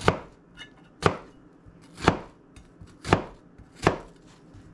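Kitchen knife cutting down through an onion onto a plastic cutting board: five sharp knocks about a second apart.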